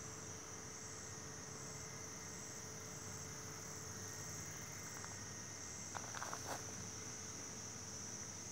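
Insects, cricket-like, trilling steadily and high-pitched, with a second fainter call pulsing about every two-thirds of a second. A short cluster of clicks sounds about six seconds in.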